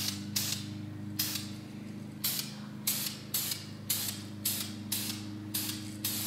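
Aerosol spray paint can hissing in short repeated bursts, about two a second, as a part is given a coat of black paint. A steady low hum runs underneath.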